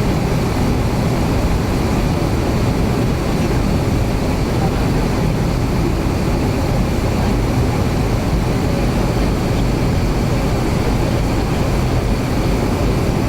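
Steady cabin noise of an Avro RJ100 with its four Honeywell LF507 turbofans running at low power before takeoff, a dense rumble with a faint steady high whine over it.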